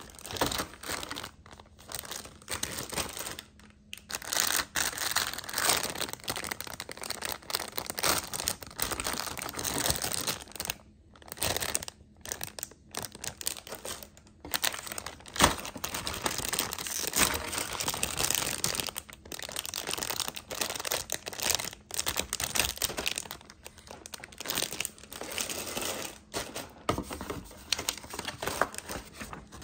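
Clear plastic bags holding model-kit parts runners being handled and crinkled, in irregular bouts of rustling with short pauses. There is one sharp tap about halfway through.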